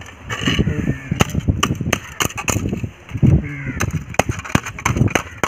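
Hammer striking a thin tinplate can laid on a brick: a quick series of sharp, irregular strikes.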